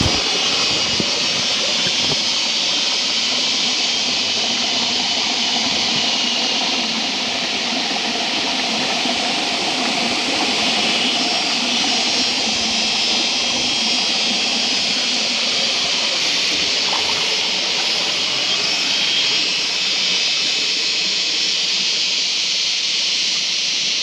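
Steady rushing of flowing stream water, an even hiss that holds at one level throughout.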